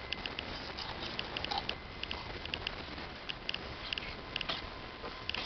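Fillet knife cutting along a Spanish mackerel's backbone and ribs, giving irregular crackling ticks, a few a second, as the blade crunches over the bones.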